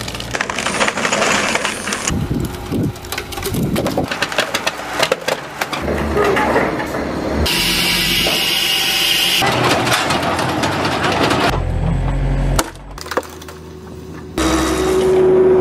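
Logs being split by hydraulic log splitters on excavators and a tractor: wood cracking and splintering over running machinery, in a run of short clips that cut abruptly from one to the next.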